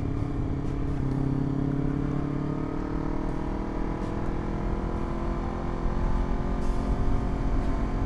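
Honda CBR250RR parallel-twin with a Villan MV2 aftermarket exhaust running under way; its note holds steady for about three seconds, then rises slowly as the bike pulls in gear.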